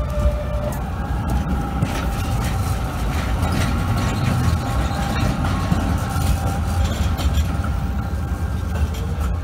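Trams passing close by on curved street track: a low rumble of wheels and running gear, clacks as the wheels cross rail joints and switches, and a faint steady squeal from the wheels on the curve.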